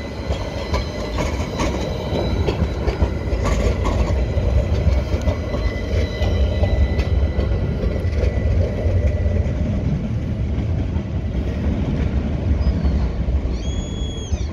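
Articulated low-floor tram rolling past on curved track: the wheels rumble on the rails and give thin, steady squealing tones from the wheel–rail contact, which die away as the tram moves off. A steady low rumble runs underneath, and a short high tone sounds near the end.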